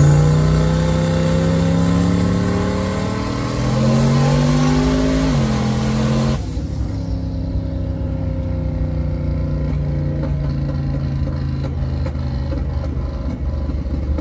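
Turbocharged LS V8 in a Malibu wagon accelerating hard, heard from inside the cabin: the engine pitch climbs, drops at a shift about three and a half seconds in, and climbs again, with a high turbo whistle over it. About six seconds in the throttle comes off, the whistle cuts out suddenly, and the engine settles to a steady, lower cruise.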